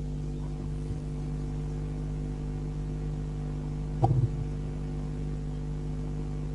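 A steady low hum of several held tones, with a short brief sound about four seconds in.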